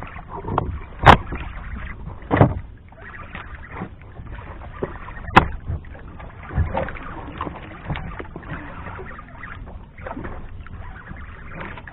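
Small outrigger boat on open water: water sloshing and lapping against the hull, with a few sharp irregular knocks, the loudest about a second in.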